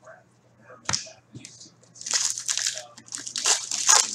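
Foil trading card pack being torn open and its wrapper crinkled, in two rustling bursts about two and three and a half seconds in. A sharp click comes about a second in.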